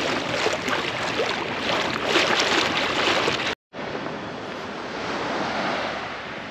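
Waves washing and wind buffeting the microphone, with irregular surges. The sound cuts off abruptly about three and a half seconds in and comes back as a quieter, steady wash of wind and water.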